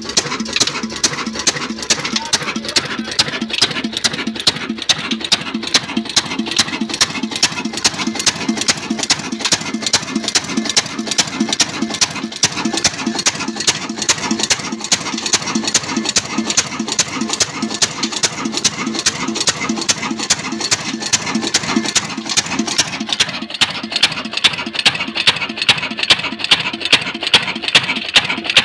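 22 hp old 'black' stationary diesel engine running at a steady speed, with an even beat of sharp knocks and clatter from its valve gear.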